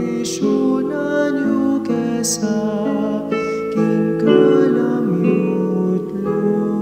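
A man singing a slow Kapampangan song in sustained, held notes over a soft instrumental backing of guitar and keyboard.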